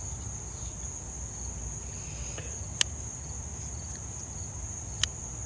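Crickets trilling steadily in the background, with two sharp metallic clicks, one about three seconds in and one near the end, from a frame-lock folding knife being opened and closed.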